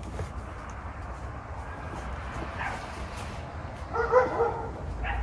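A dog whimpering, with one short, clear whine about four seconds in and a fainter one earlier, over a steady low hum.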